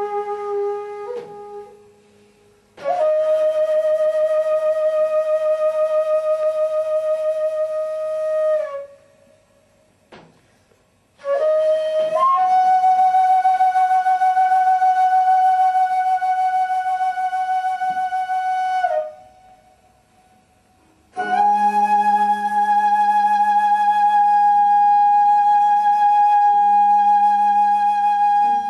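A wind instrument playing three long held notes with a slight waver, each lasting about six seconds and each a little higher than the last, with short pauses between them.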